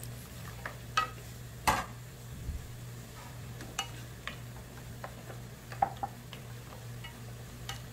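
Wooden spatula scraping blanched king oyster mushrooms out of a ceramic bowl into a frying pan of soy-sauce glaze and stirring them, with sharp knocks of spatula on bowl and pan, the loudest about one and two seconds in. Near six seconds a ceramic bowl is set down with a click, over a steady low hum.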